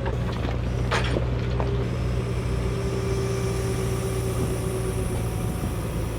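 An engine idling steadily, with a couple of short metallic clinks about a second in.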